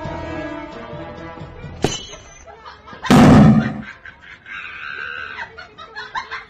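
Small firework lit on the ground goes off with one loud blast about three seconds in, over background music.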